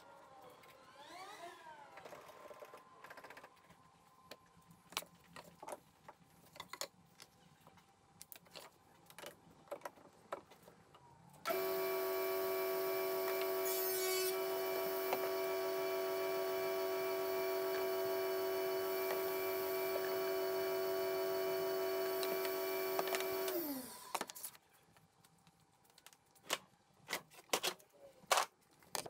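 Table saw switched on about eleven seconds in, running at a steady pitch for about twelve seconds while a plywood panel is fed through it, then switched off and winding down with a falling pitch. Before and after, light clicks and knocks of plywood being handled and marked on the saw table.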